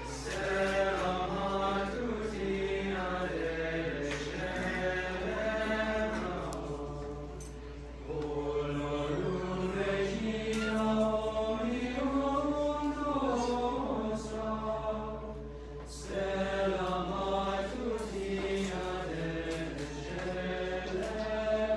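Men's choir of seminarians singing a cappella, long held notes in phrases, with brief pauses between phrases about 8 and 16 seconds in.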